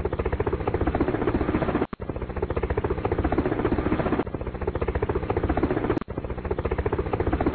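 Helicopter sound effect: a rapid, steady chopping of the rotor, broken by two brief dropouts about two and six seconds in.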